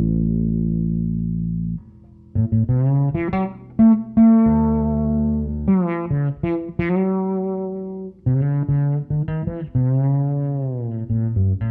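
Fretless electric bass played solo: a long sustained low note that stops about two seconds in, then a run of plucked notes, and near the end a held note that slides up in pitch and back down.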